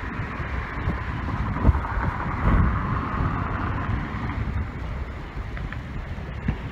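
Wind buffeting the handheld camera's microphone in uneven low gusts, over a steady hiss that swells and fades again about two to four seconds in.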